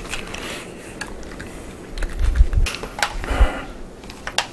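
Handling noise of an SKS rifle being moved and slung onto the shoulder: scattered light clicks and knocks, with a few dull thumps about two to three and a half seconds in.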